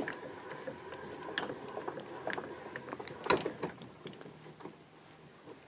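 Small metallic clicks and rattles of saw chain links being handled on a hand-cranked chain rivet spinner, with a louder clack about three seconds in.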